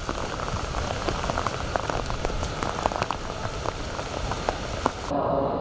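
Steady rain falling, an even hiss with many small, sharp raindrop ticks close by. It cuts off abruptly near the end, giving way to a duller low rumble.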